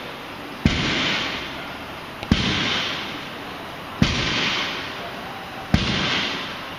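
Loaded barbell with bumper plates set down on the gym floor between deadlift reps, four times about every one and a half seconds. Each touch-down is a sharp knock followed by about a second of fading clatter.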